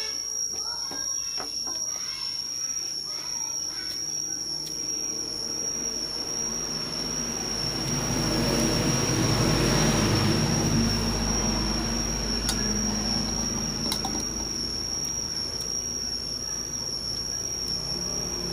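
A vehicle passing by: a low engine rumble builds to a peak about halfway through and then fades. A steady high-pitched whine runs throughout, and a couple of light utensil clicks come later on.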